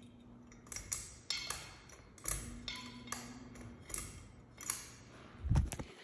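Irregular sharp clicks and taps, about a dozen, some ringing briefly, over a faint low hum that comes and goes. A heavier thump comes near the end.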